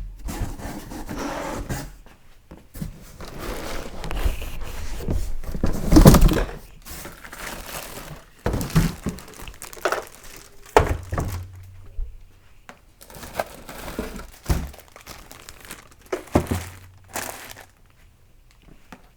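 A sewing machine being unpacked from its cardboard box: packaging rustling and crinkling, with several thunks as things are lifted and set down. The loudest knock comes about six seconds in.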